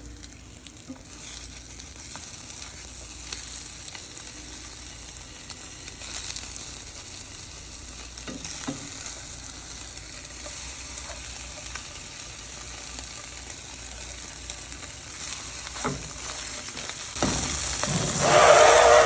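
Slices of chicken luncheon meat sizzling steadily as they fry in a pan, with a few short knocks along the way. About two seconds before the end, a louder, wavering noise comes in over the sizzle.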